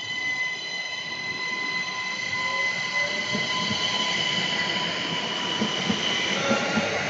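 A train running past on the rails: a steady high-pitched whine with several overtones over the rumble of its wheels, growing a little louder, with a few knocks in the second half.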